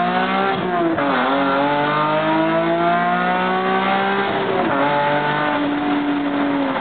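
Nissan 370Z's 3.7-litre V6, running through headers and cats with no mufflers, heard from inside the cabin under hard acceleration: a raspy exhaust note climbing with the revs. The pitch drops sharply at an upshift about a second in and again near five seconds, climbing again after each.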